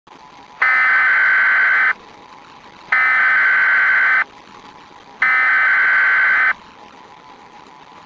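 Emergency Alert System SAME header: three identical digital data bursts, each a little over a second long with about a second between them, over a faint steady hiss. The bursts carry the coded header that opens an EAS alert.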